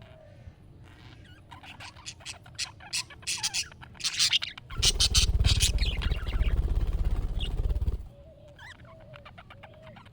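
Budgerigars chirping and chattering in quick bursts, with a loud low rumbling noise for about three seconds in the middle and soft warbling after it.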